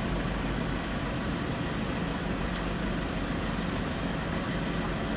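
Steady background noise: a low hum under an even hiss, holding constant with no breaks.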